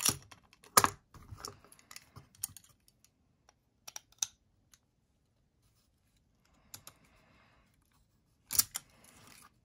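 Irregular sharp clicks and taps of small metal hand tools against a folding knife's parts as a stuck, spinning pivot screw is worked at, the loudest about a second in and again near the end, with a soft rustle between.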